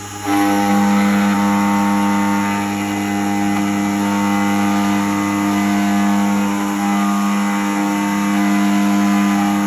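Keyline Laser 994 key-cutting machine running steadily as its cutter mills the second side of a key: a loud, even motor hum with a whine over it that comes up sharply right at the start and holds level.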